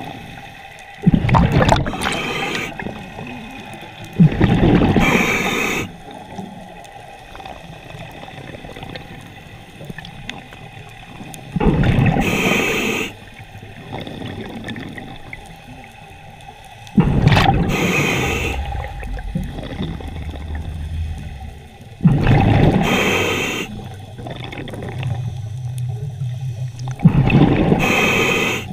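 Scuba regulator breathing heard underwater: six loud bursts of bubbling exhaust, each about a second and a half long and several seconds apart, with quieter breath noise between them and a faint steady hum throughout.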